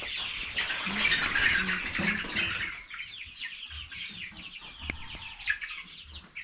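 A flock of young chicks peeping continuously: many short, high, downward-sliding peeps overlapping. There is one sharp knock about five seconds in.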